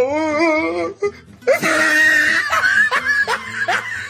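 Music with a high voice that wavers up and down in pitch for about the first second, followed by laughter over the music.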